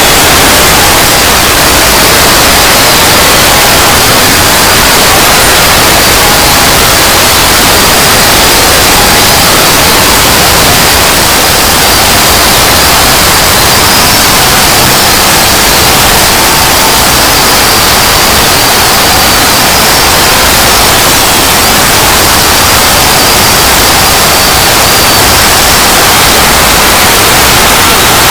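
Very loud, steady, harsh static-like noise near full volume, with a faint high whine running through it and no breaks.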